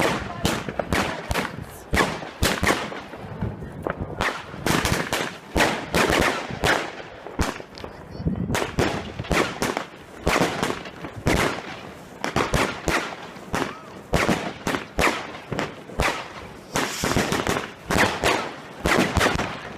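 New Year's Eve fireworks going off thick and fast: a dense, uneven run of firecracker bangs and explosions, overlapping one another with no pause.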